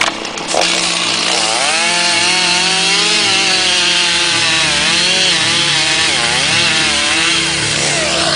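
A loud small motor running steadily, its pitch wavering up and down over a dense hiss, then cutting off just before the end.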